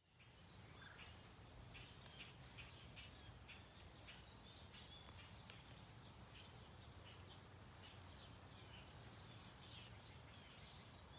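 Faint outdoor birdsong: many short chirps and calls from several small birds, over a low steady background hum.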